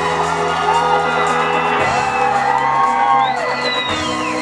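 Instrumental post-rock band playing live, with sustained bass and keyboard chords that change twice, while audience members let out rising-and-falling whoops over the music.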